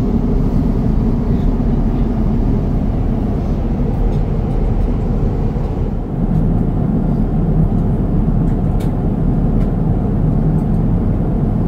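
Steady cabin noise of an Airbus A350-900 in flight: a loud, even rumble of engines and airflow. About halfway through the higher hiss thins out, leaving the low rumble.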